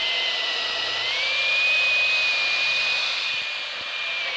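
FLEX Turbo 24V cordless hammer drill, on speed 1 with turbo mode on, its motor whining steadily under load as a large bit bores into pressure-treated timber. The whine steps up in pitch about a second in, holds, and sags slightly near the end.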